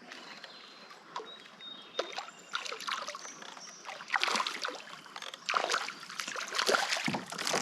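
Water splashing and sloshing around a kayak in irregular bursts, growing busier and louder in the second half.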